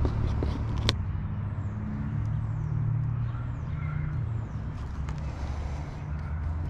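A steady low motor hum runs throughout, with a single sharp click about a second in and a few faint, high falling chirps.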